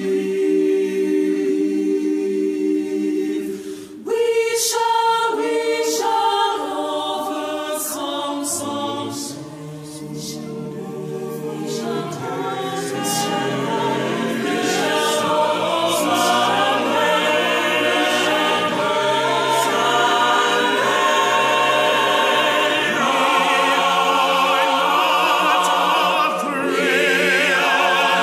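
Large mixed choir of men and women singing together in harmony. About four seconds in there is a brief break, after which the singing gradually builds fuller and louder.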